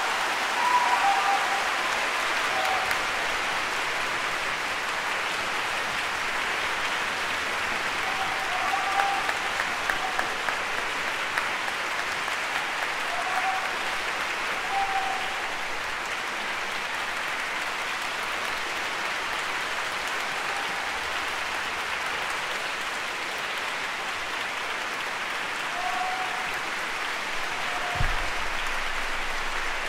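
Concert-hall audience applauding steadily after the close of a piano concerto, with a few voices calling out over the clapping. A single low thump comes near the end.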